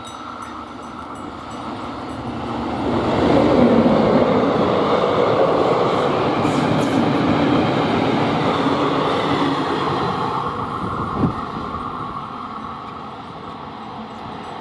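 A fast electric-hauled train of milk tank wagons and vans rushing past, the wheels rumbling on the rails. The sound builds to its loudest about four seconds in, then fades slowly as the train draws away, with a single sharp knock about eleven seconds in.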